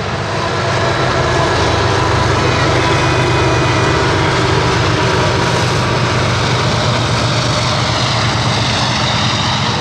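Diesel freight locomotives passing close by: a loud, steady engine rumble mixed with rolling wheel and rail noise, with a few faint steady high tones over it.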